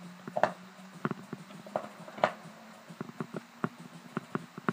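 Hand screwdriver turning and tightening snowboard binding mounting screws: a string of irregular short clicks and knocks as the screws are snugged down by feel.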